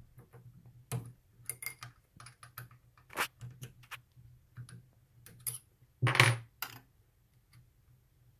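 Small metallic clicks and clinks of an Allen key and hands working the steel compound rest of a mini lathe, loosening its screws, with a louder brief rattle about six seconds in. A faint low hum sits underneath.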